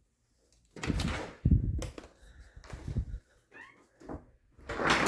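A door being handled, opened and closed, with knocks and rattling in two loud stretches about a second in and near the end.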